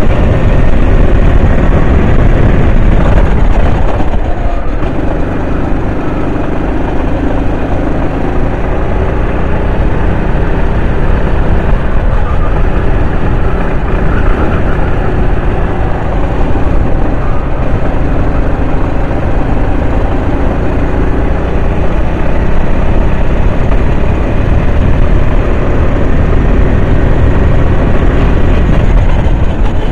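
Kart engine running at racing speed, its pitch rising and falling again and again as the throttle comes on and off through the corners, over a heavy rumble.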